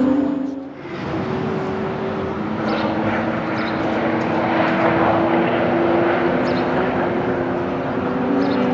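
Supercharged 6.2-litre LS9 V8 of a Corvette ZR1, tuned to 800 bhp, idling steadily.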